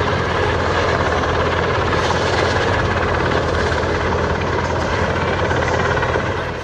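Helicopter flying overhead, its engine and rotor running steadily and loud.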